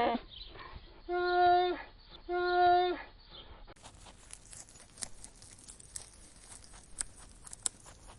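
An animal calling: the tail of one call, then two short calls held on a steady pitch, followed by a quieter stretch of scattered clicks and ticks.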